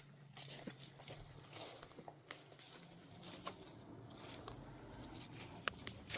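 Footsteps on a forest floor: faint, irregular crackles and clicks of leaf litter and twigs underfoot, with a sharper snap near the end.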